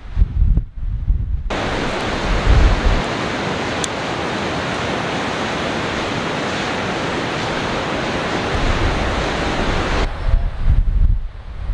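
Wind buffeting the microphone in low gusts. From about a second and a half in to about ten seconds in, a loud steady rushing noise takes over, starting and stopping abruptly.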